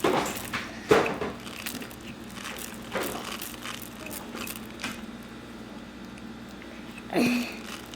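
A squishy toy bear being cut open and squeezed by hand: irregular crunching and crinkling with scattered clicks.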